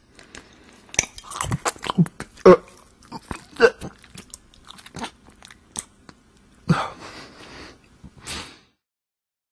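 A person chewing and biting food close to the microphone, with irregular wet clicks and crunches. There are a couple of short muffled vocal sounds a few seconds in, and a breathy, cough-like exhale later on.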